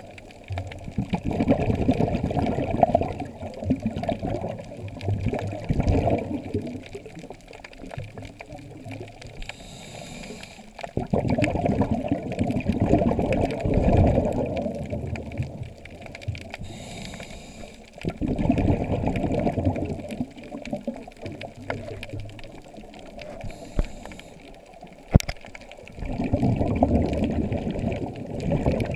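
Scuba diver breathing through a regulator, heard underwater: a short hiss on each inhale, then a long burst of bubbling exhaust bubbles on each exhale, four breaths about seven to eight seconds apart.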